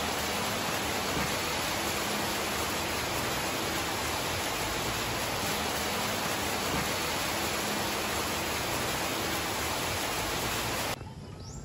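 Heavy storm rain pouring steadily, a dense even hiss that stops abruptly near the end.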